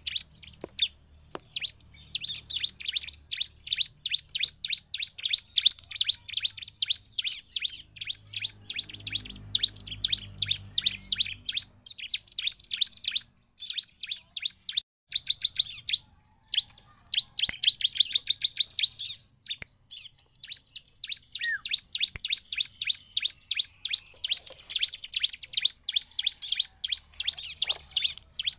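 Bar-winged prinia (ciblek) singing in rapid strings of sharp, high chirps, with a couple of short breaks.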